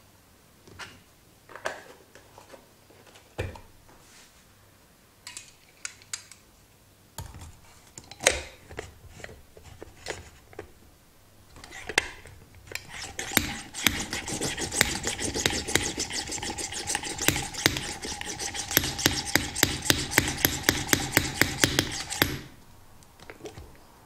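French press plunger pumped rapidly up and down in milk to froth it, a fast even rattle of strokes in the glass carafe that starts about halfway through and stops suddenly near the end. Before that come scattered clicks and knocks of the press being handled.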